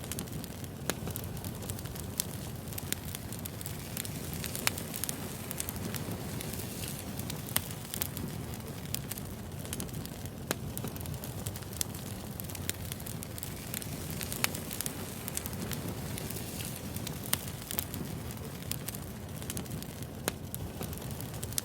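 Wood fire crackling: a steady low rush of burning with sharp pops of the firewood at irregular moments, a few standing out louder than the rest.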